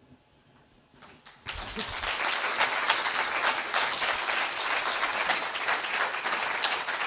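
Audience applauding: a dense patter of many hands clapping that starts about a second and a half in and holds steady.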